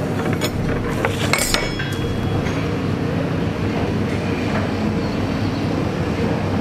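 Metal cutlery clinking a few times on the table and plate in the first two seconds, over a steady low hum.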